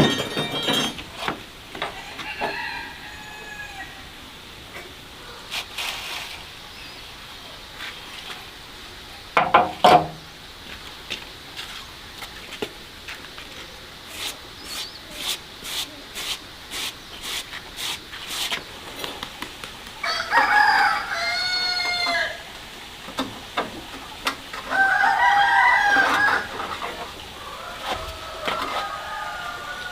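Chickens on a farm: a rooster crowing twice in the second half, each crow over a second long, with hens clucking. There is a loud knock about ten seconds in and a run of quick, evenly spaced taps a few seconds later.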